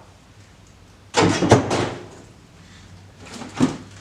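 A rusty piece of rebar set down among scrap metal: a loud clattering clank about a second in, then a lighter knock near the end.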